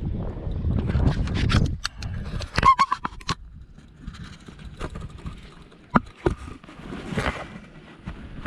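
Wind rumbling on the microphone, then a quick run of sharp clicks and rattles, followed by a few scattered knocks.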